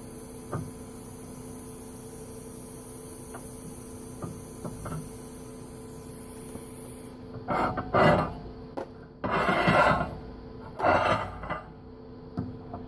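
A steady TIG welding arc hiss over the welder's hum, which cuts off about seven seconds in. Then come three short bursts of scraping and rubbing on steel angle iron.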